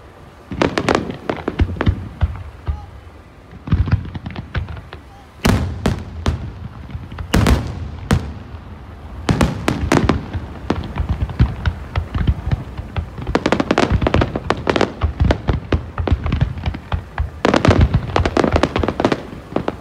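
Fireworks display: volleys of aerial shells bursting in rapid bangs and crackles, coming in clusters with short lulls between them.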